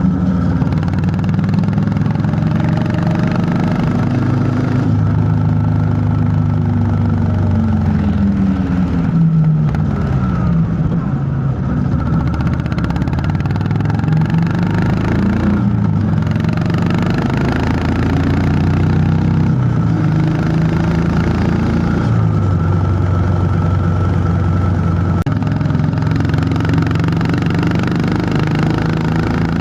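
Honda CB350 H'ness single-cylinder engine and exhaust running on the move, its pitch falling and rising as the rider eases off and accelerates, with a clear drop in revs about nine to eleven seconds in.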